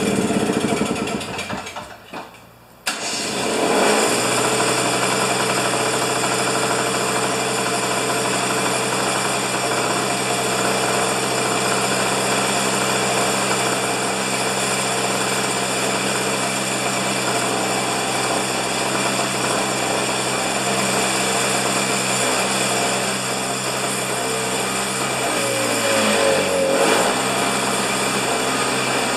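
Husqvarna snow thrower's two-stroke engine fades out about two seconds in, then catches again almost at once and runs steadily at one speed. Near the end its pitch briefly dips and recovers.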